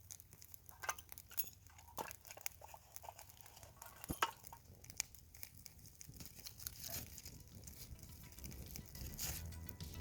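Small newly lit campfire of birch bark and twigs crackling faintly, with irregular sharp pops and snaps.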